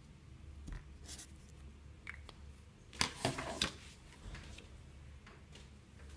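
A pen circling an answer on paper: a short cluster of scratchy strokes about three seconds in, with a few faint ticks and rustles before it.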